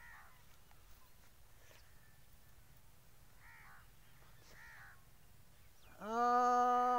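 Crows cawing faintly, about three calls spread through the stretch. Near the end a loud, steady, held tone begins and keeps going.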